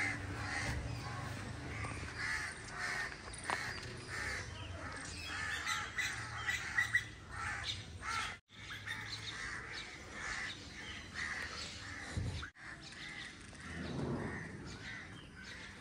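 Crows cawing again and again, among other bird calls.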